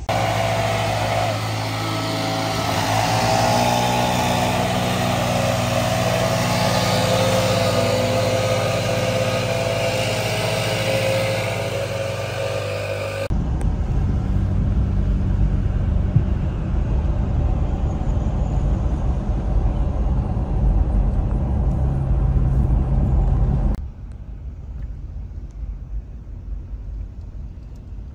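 Vehicle sounds in three cut-together takes. First a pickup truck's engine running close by with a steady hum as it starts pulling a travel trailer. Then a low, steady road rumble inside a following car's cabin, which drops to a quieter hum about four seconds before the end.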